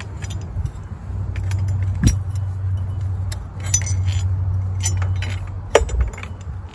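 Small metal clinks and taps of battery hold-down hardware being handled and fitted, with sharper knocks about two seconds in and just before six seconds, over a steady low rumble.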